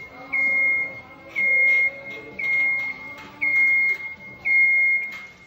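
Genie GS scissor lift's warning alarm beeping: a steady high-pitched tone about half a second long, repeating roughly once a second, five beeps in all.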